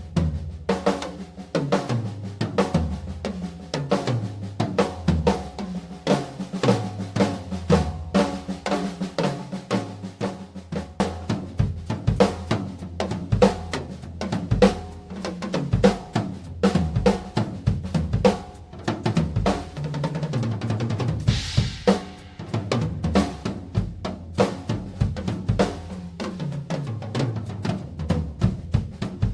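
Tama Starclassic Bubinga Elite drum kit being played: busy grooves and fills with bass drum, snare and toms whose notes fall in pitch as they ring out, and a cymbal crash a little past the middle.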